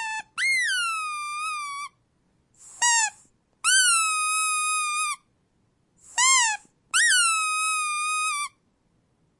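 Rubber squeak toy squeezed over and over, in a sad, whining squeak. Three long squeaks each jump up and then slide down in pitch and hold, alternating with short squeaks that sweep sharply upward.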